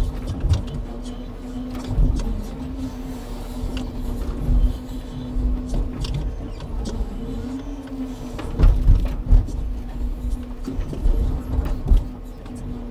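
Truck-mounted timber crane loading pine pulpwood: a steady drone of the truck's engine and hydraulics, with irregular heavy knocks of logs and grapple, several loud ones close together past the middle.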